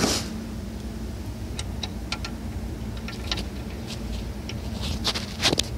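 Irregular light metallic clicks and taps, about nine in all, the sharpest near the start and near the end, from a hand working the lock tab back into the adjusting ring of an Eaton Fuller heavy-duty truck clutch through the clutch housing's inspection opening. A steady low hum runs underneath.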